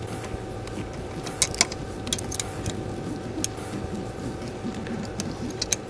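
Scattered small metallic clicks and taps as a loosened 10mm bolt is backed out and removed with a socket on an extension, over a steady low hum.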